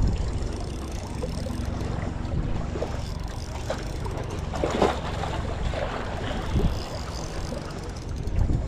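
Wind buffeting the microphone, over the whirring and clicking of a spinning reel being wound against a fighting fish, with a few sharper clicks as its drag is worked.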